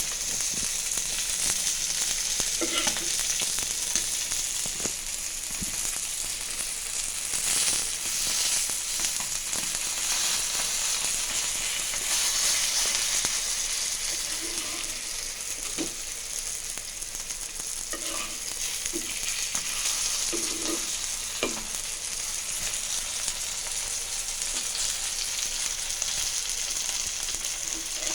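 Fish frying in hot oil: a steady, even sizzle throughout, with a few short knocks scattered through it.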